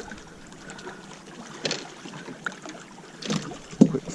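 Water lapping around a fishing kayak, with a few sharp knocks or splashes from gear and handling on the hull, the loudest near the end.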